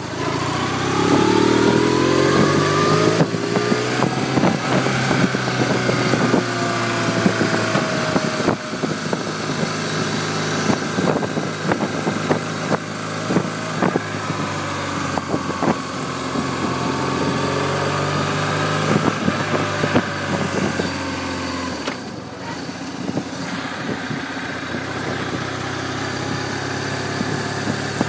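A 1996 BMW R1100RT's boxer twin engine pulls the bike along, its pitch climbing in steps as it accelerates through the gears over a steady rush of wind. About two-thirds of the way through, the engine note drops as the rider eases off.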